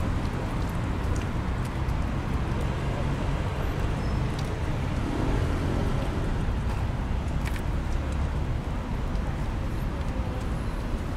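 Steady road traffic on a busy multi-lane city street: a continuous wash of car engines and tyres with a deep low rumble.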